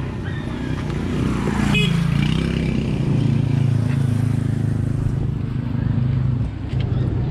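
A motor vehicle's engine running steadily. It grows louder about a second in and then holds.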